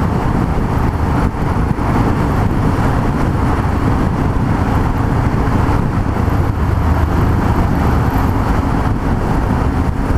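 Yamaha MT-03 660 motorcycle with a single-cylinder engine, running at a steady cruising speed, heard from the rider's position as a loud, even engine and wind rush with no revving.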